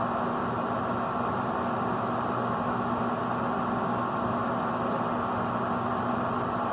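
A 92% efficient gas furnace running in its heating cycle: the inducer fan motor hums steadily over the even rush of the lit gas burners. The burners show a clean blue flame, a sign of complete combustion.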